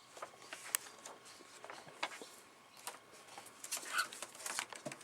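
Pet cockatiel moving about, with scattered light clicks and taps and a brief soft chirp about four seconds in.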